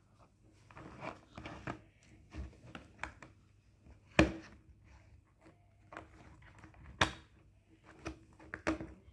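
Plastic clicks and knocks from a toy saw being handled and its parts pressed together on a tabletop, with two sharp snaps about four and seven seconds in.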